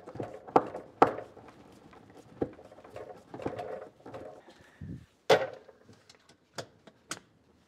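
Sharp knocks and clicks from fitting a plastic LED strip light and its mounting clips against the underside of a wooden top: about six separate taps, the loudest about five seconds in.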